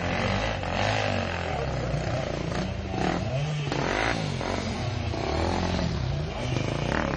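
Dirt bike engine revving up and down again and again.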